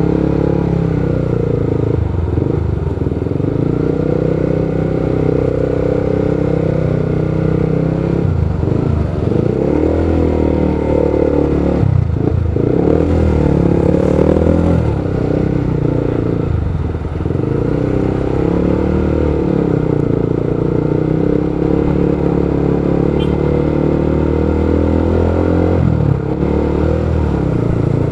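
Motorcycle engine running in slow traffic, its pitch rising and falling again and again as the throttle is opened and closed.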